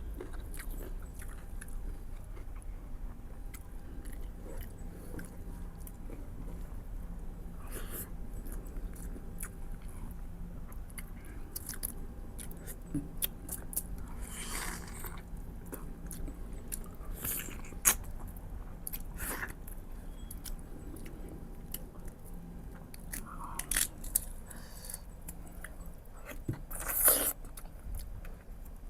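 Close-miked eating: a person chewing and biting mutton ribs, with wet mouth clicks and smacks scattered throughout and a few louder bites, the loudest near the end.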